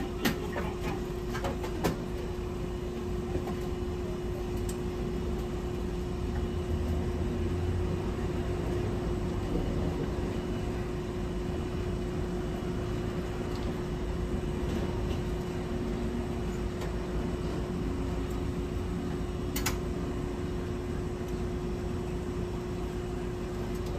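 Hankai Tramway type 701 streetcar heard from inside the car: a steady hum holding one pitch over a low rumble. A few sharp clicks come in the first two seconds, and one more comes near the end.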